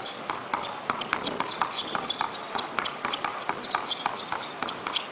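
Basketball play on a court: quick, irregular thuds of feet and ball on the floor, several a second, with short high sneaker squeaks among them.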